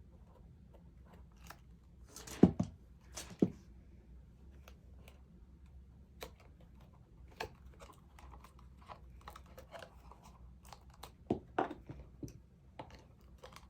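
Cardstock being handled and pressed together by hand: scattered rustles and small clicks, with a few louder knocks about two and a half seconds in, a second later, and again near the end.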